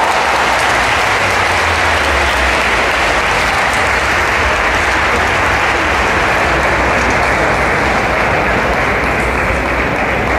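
Spectator crowd in a sports hall applauding after a point, a dense, steady clapping that lasts the whole time.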